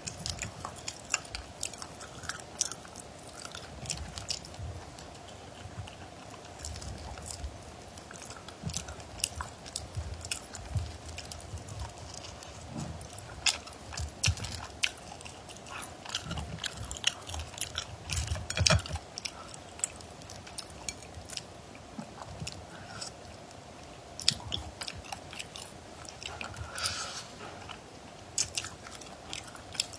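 Close-up eating of cooked crayfish: shells cracking and snapping as they are peeled by hand, mixed with biting and wet chewing, in irregular clicks and crunches. A faint steady hum runs underneath.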